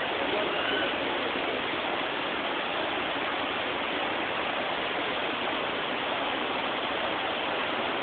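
Steady rush of water pouring over the terraced cascades of Kuang Si Falls.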